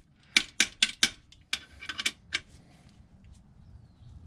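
Sharp metallic clicks of a hand tool with an Allen bit working at an oil pan bolt, about four to five a second, turning lighter and sparser about a second and a half in, then stopping.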